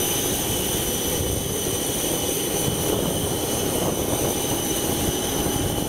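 Jet aircraft turbine running steadily on the apron: a constant rushing noise with a high, even whine.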